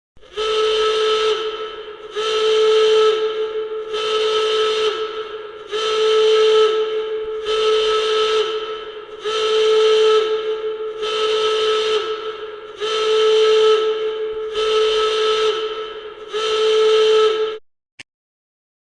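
A siren sounding in ten repeated blasts of one steady, high pitch, about one every 1.8 seconds. Each blast lasts about a second and a half and dips briefly in pitch as it cuts off.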